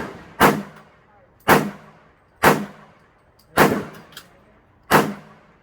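Pistol chambered in .40 S&W fired five times at a slow, steady pace, about one shot a second, each report with a short echoing tail.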